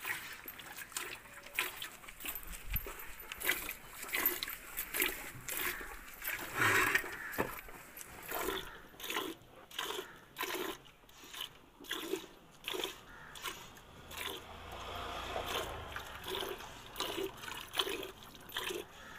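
Cow being milked by hand: milk squirting from the teats in short, regular spurts, roughly two a second.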